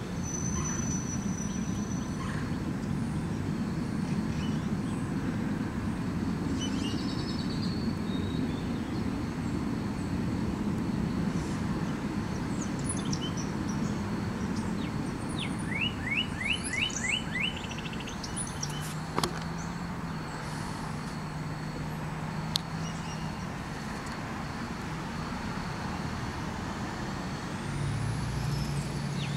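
A steady low rumble of distant traffic. A bird breaks in with a quick series of about six short chirps about halfway through, and a few more chirps near the end.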